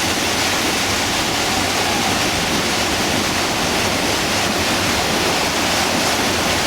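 Class V whitewater rapid rushing steadily: a loud, even roar of churning river water.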